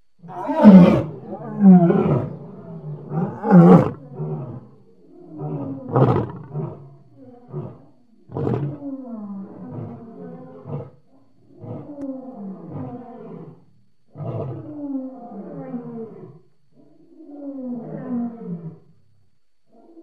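A lion roaring in a bout: a few loud full roars, then a string of shorter, quieter grunting roars, each falling in pitch.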